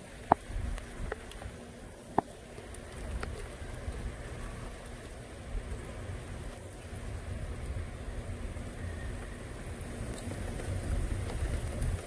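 Steady rain falling, with gusty wind rumbling on the microphone and building toward the end. Two sharp taps stand out, about a third of a second in and again just after two seconds.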